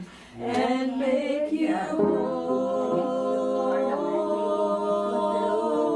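A small family group singing gospel a cappella in close harmony. After a brief break right at the start, the voices come back in and hold one long sustained chord from about two seconds in.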